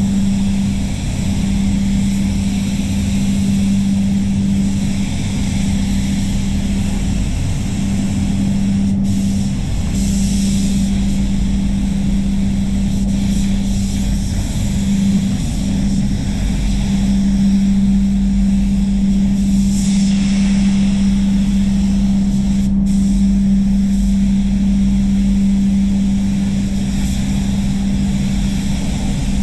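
Steady hum and rush of a paint spray booth's air extraction, with the hiss of a gravity-feed spray gun's compressed air as it sprays paint onto car body panels in passes.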